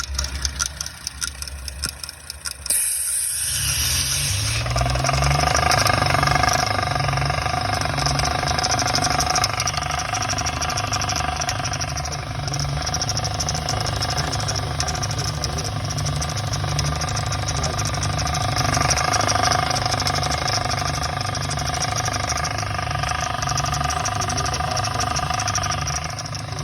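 Audi S4 3.0-litre turbocharged V6 running with a steady, evenly pulsing rattle, the tapping noise the owner puts down to the lifters, alongside a cylinder 4 misfire. About three seconds in, after a brief hiss, the engine sound gets louder and stays steady.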